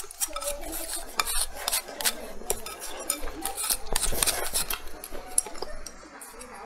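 Wooden chopsticks repeatedly clicking and scraping against a bowl while picking at braised meat, a rapid run of short taps.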